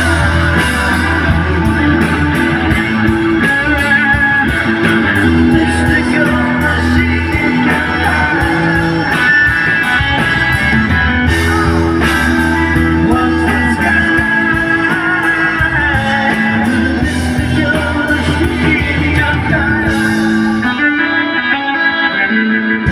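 Live rock band playing an instrumental passage: electric guitar over bass, drums and organ, heard from the audience through the PA.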